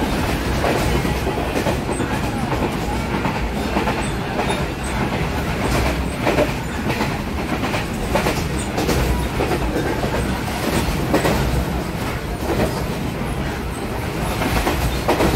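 Passenger train running along the track, heard from a carriage window: a steady rumble of wheels on rail with the clickety-clack of wheels passing over rail joints, several sharper knocks scattered through.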